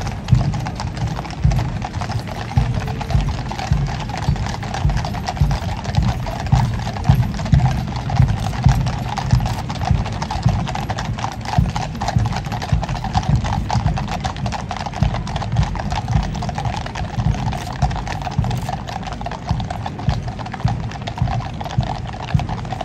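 Many horses' hooves clip-clopping on the road as a mounted troop of Household Cavalry passes at a walk, with a dense, uneven patter of hoof strikes.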